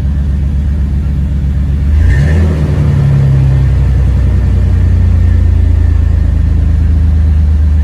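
1993 Chevrolet Astro van's 4.3-litre V6 idling, just started after sitting unused for a couple of weeks, heard from inside the cab. About two seconds in the engine speed briefly rises, then it settles into a steady idle.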